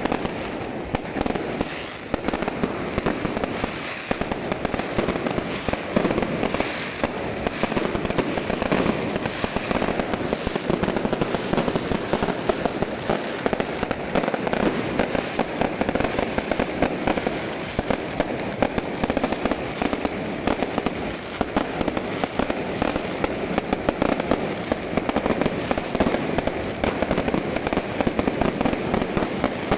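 Aerial fireworks going off overhead in a continuous barrage: a dense, unbroken run of pops and bangs with no pause.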